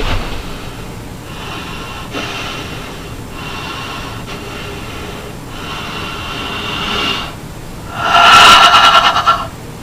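A man breathing heavily through several slow breaths. About eight seconds in comes one loud, open-mouthed breathy exhale lasting about a second and a half.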